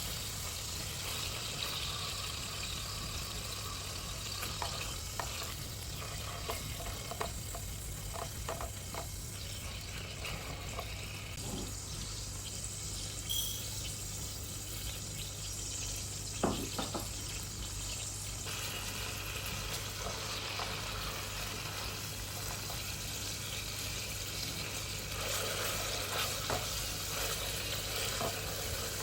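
Food sizzling in a pan: a steady frying hiss, with scattered clicks of a utensil and one sharper knock about halfway through.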